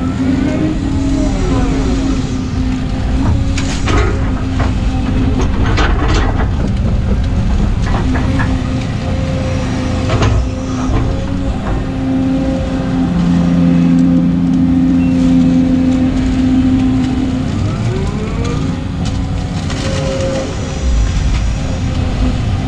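Volvo EC220 excavator's diesel engine and hydraulics working under load, heard from inside the cab: a steady hum with a hydraulic whine that rises and falls as the boom and swing move. Several short clanks around 4 to 10 seconds in as the bucket digs and dumps wet sand and mud.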